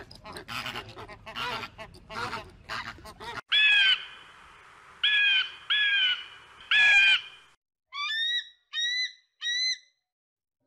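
A flock of flamingos honking and chattering over one another for about three seconds. Then a bald eagle's high, piercing calls: four loud drawn-out cries, each falling slightly, followed by three shorter ones.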